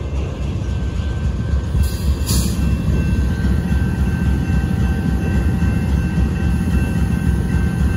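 BNSF diesel locomotive passing at close range: a steady low rumble of engine and wheels, with faint steady high tones above it. A short hiss about two seconds in.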